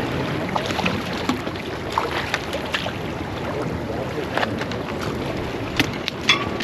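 Steady wash of water and wind buffeting the microphone, with scattered small clicks and taps, a few louder ones near the end.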